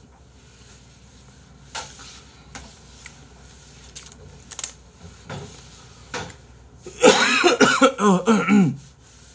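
A few faint knocks and small handling sounds, then about seven seconds in a man's loud wordless vocal sound, nearly two seconds long, with his voice bending up and down.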